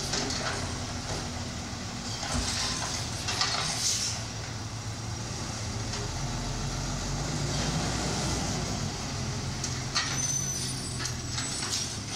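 A natural-gas automated side-loader garbage truck runs with a steady low engine hum while its hydraulic arm dumps a can and sets it back down. A couple of hissing bursts come in the first few seconds, and a short hiss with a high squeal comes about ten seconds in.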